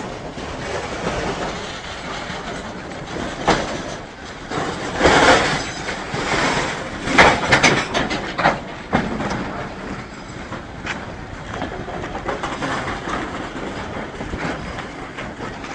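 Freight train wagons rolling past close by, their wheels clattering over the rail joints with a continuous rushing noise that swells louder a few times.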